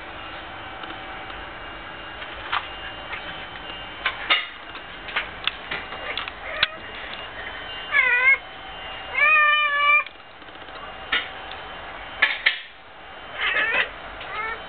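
Domestic cat chattering at a fly it is stalking: soft clicking noises, then several short warbling chirps whose pitch wobbles up and down. The longest chirp comes just past halfway.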